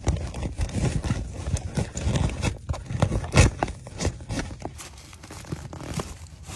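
Rubber propane hose being pushed through a canvas tent's port, with rustling canvas and irregular knocks and scrapes of the handling; the loudest knock comes about three and a half seconds in.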